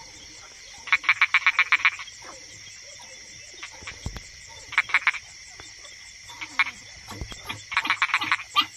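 Frogs calling in three bursts of rapid croaking pulses, over a steady high trill of insects.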